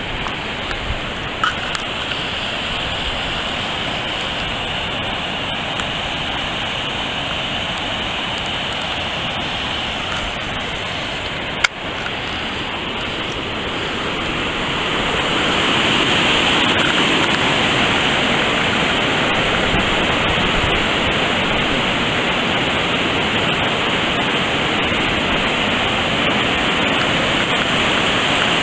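Floodwater rushing over rocks below a lake spillway after heavy rain: a steady noise of whitewater that grows louder a little past the middle. One sharp click about 12 seconds in.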